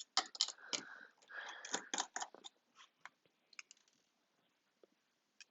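Small metal clicks and scraping from a precision screwdriver working the screws of an iPhone 6s battery connector bracket, busy for the first two and a half seconds, then only a few faint ticks.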